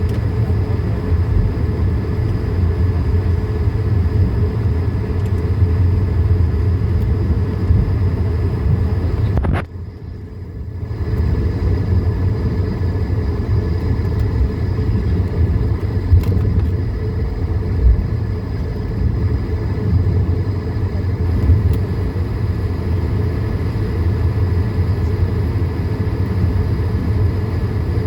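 Cabin noise inside an Airbus A220-300 taxiing, its Pratt & Whitney PW1524G geared turbofans at low taxi power: a steady low rumble with faint, steady high-pitched whine tones. About ten seconds in, the sound drops away suddenly and comes back a second or so later.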